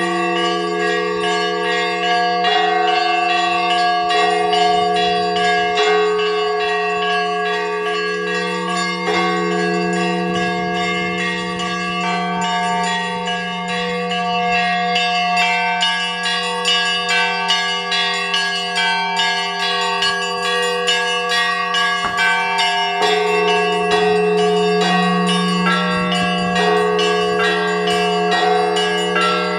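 Russian Orthodox church bells ringing: quick, rhythmic strikes on several smaller high bells over the lasting hum of a large bell.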